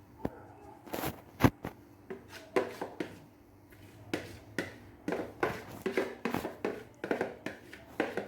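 Irregular light knocks and clatters of kitchen utensils against a mixing bowl and cake tin while cake batter is scraped into the tin. One louder knock comes about one and a half seconds in, and the knocks come quicker in the second half.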